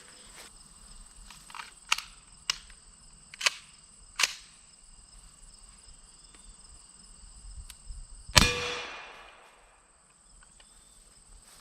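One suppressed 5.56 shot from an AR pistol fitted with a Griffin Armament GP5 suppressor, about eight seconds in, its report fading over about a second and a half. Four sharp clicks come a few seconds before it, and insects chirp throughout.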